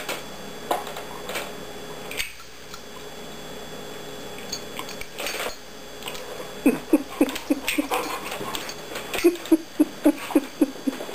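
A black Labrador scrambling after a clothespin clipped to its neck fur, its metal collar tags clinking. About two-thirds of the way through come two quick runs of short, low sounds from the dog, about six a second.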